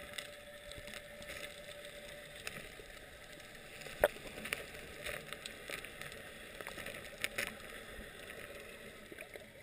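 Faint underwater sound heard through an action camera's waterproof housing: a soft wash of water noise with scattered clicks and knocks, the sharpest about four seconds in and two more close together near seven seconds.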